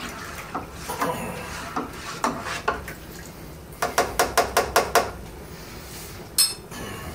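Plastic buckets and a plastic pitcher being handled: scattered knocks, then a quick run of about eight sharp taps about four seconds in, and a single ringing clink near the end.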